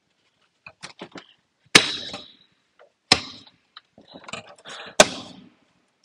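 Plastic engine cover on a Mercedes V8 being pressed down onto its mounting pins. Three sharp snaps come about a second and a half apart as the pins seat in their grommets, with lighter clicks between them.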